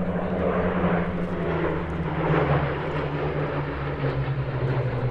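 Two Supermarine Spitfire Mk.1a fighters flying past in formation, their Rolls-Royce Merlin V12 piston engines droning steadily. The drone slides slowly lower in pitch as the aircraft pass.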